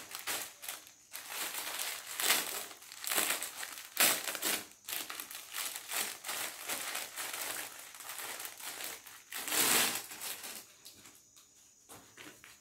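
Thin plastic garment polybag crinkling and rustling in irregular bursts as track pants are worked out of it by hand, dying down to quiet handling in the last couple of seconds.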